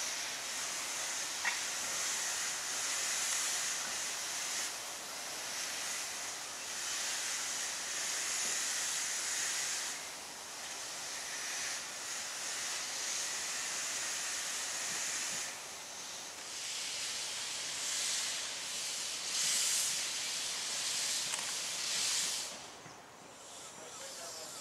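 Steam hissing from Bagnall No.401, a red industrial tank locomotive. The hiss wavers in strength and drops away near the end.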